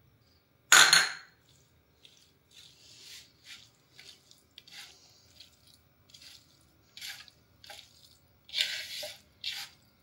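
A small bowl clatters down on the counter about a second in, then a hand mixes a plateful of tiny raw kachki fish with turmeric and salt, giving short wet squishing rustles in uneven bursts.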